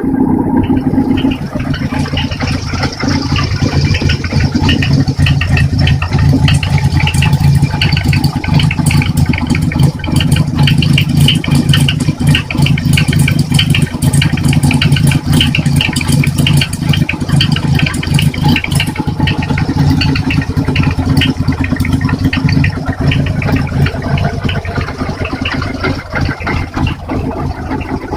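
Kawasaki Z1's air-cooled inline-four engine running steadily through an aftermarket S252-type silencer, with a loud, even exhaust note.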